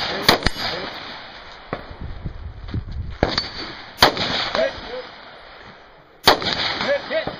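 Rifle shots fired at a match, spaced a few seconds apart: loud reports near the start, about four seconds in and just past six seconds in, with a few fainter pops between, each trailed by a short echo off the hillsides.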